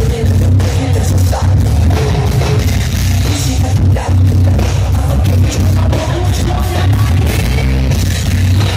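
Live heavy metal band playing loud through a concert PA, with electric guitar and singing over heavy, booming low end, recorded from within the crowd.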